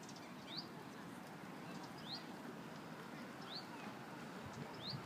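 A bird calling a short rising note four times, about every second and a half, over a low steady background murmur.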